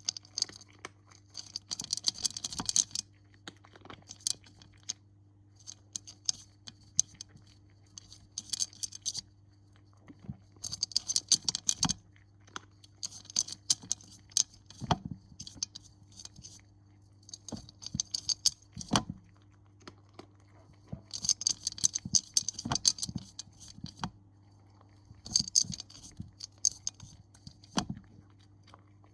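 Bursts of light, fast jingling rattles, each about a second long, coming every couple of seconds, with a few soft knocks between them over a faint steady low hum.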